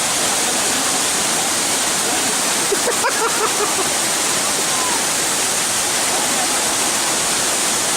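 Waterfall pouring into a pool: a steady, loud, unbroken rush of falling water.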